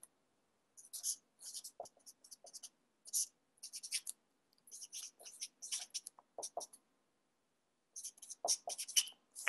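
Handwriting on paper: faint, short scratchy pen strokes in quick clusters, pausing for about a second before a last flurry of strokes near the end.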